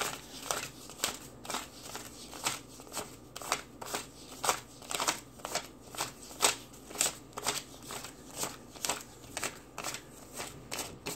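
US dollar bills being counted by hand, each note flicked off the stack with a short papery snap, about two a second in an even rhythm.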